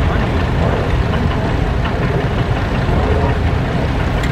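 International Harvester tractor engine running steadily at low speed with an even, low throb.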